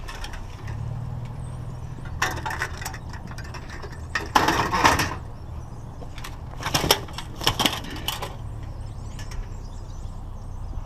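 Scrap metal clattering and rattling in three separate bursts over a steady low engine hum.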